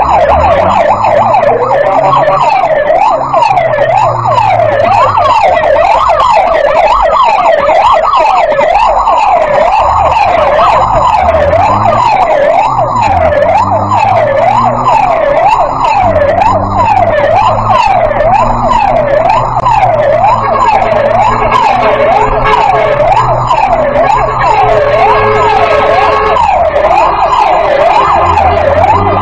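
A tow truck's electronic siren wailing rapidly up and down, about one sweep a second, loud and continuous over the low drone of the truck's engine.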